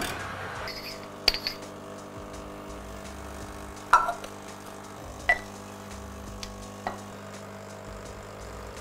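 Espresso machine's pump starting about a second in and humming steadily as a shot is pulled. Over it come several sharp clinks of glass and metal, the loudest about four seconds in.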